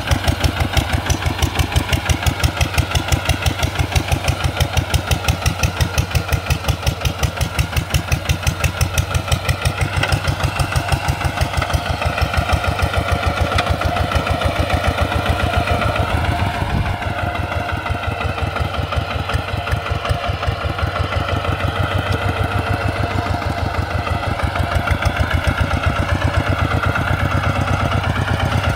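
Kubota RT140 Plus single-cylinder diesel engine of a two-wheel hand tractor running steadily, each firing stroke heard as a rapid, even beat. The engine note sags briefly about two-thirds of the way in, then steadies again.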